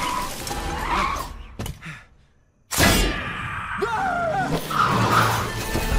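Animated film sound effects of a cartoon race car in a frantic scramble: tyres skidding and screeching, a sudden loud hit after a brief hush about two and a half seconds in, and a short falling yell from the car near the end.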